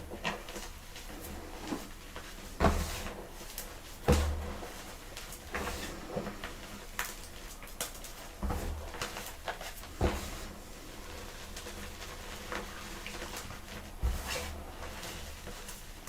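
Blocks of gym chalk crushed by hand: five loud crunches a few seconds apart, each with a dull thud, and small crumbling crackles between them.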